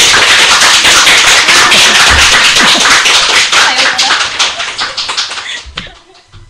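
Hands clapping in quick, dense applause that dies away near the end.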